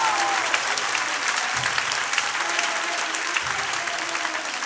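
Theatre audience applauding: dense clapping that eases slightly toward the end. A soft low beat of music sounds underneath about every two seconds.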